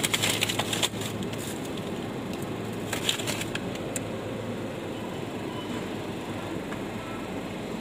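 Shopping trolley rolling over the store floor, a steady rumble of its wheels and wire basket with a few clicks and rattles in the first second and again about three seconds in.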